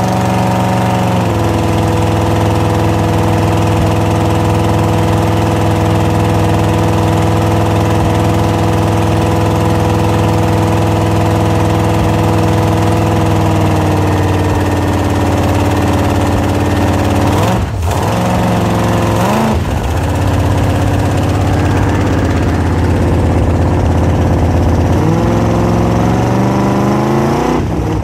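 Ford 460 big-block V8 running through open headers, freshly started for the first time after sitting all winter. It idles steadily and settles to a lower idle about a second in and again around halfway. The throttle is blipped twice about two-thirds through, and the engine revs up near the end.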